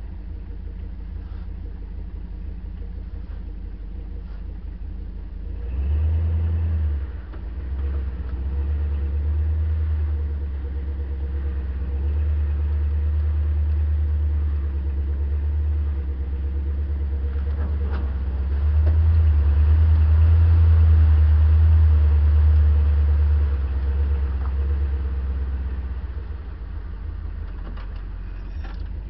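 Land Rover Series 2a engine, heard close up from the bonnet, running at a low rumble, pulling harder about six seconds in and working hardest for a few seconds past the middle before easing back to a low idle near the end.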